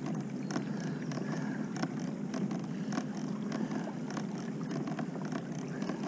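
Kayak under way on calm water: a steady low hum with water noise and light, irregular ticks and taps.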